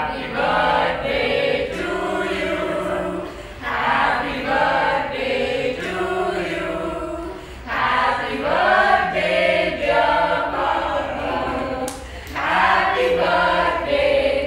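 A group of people singing together without accompaniment, a slow tune in long held phrases with short breaks between them.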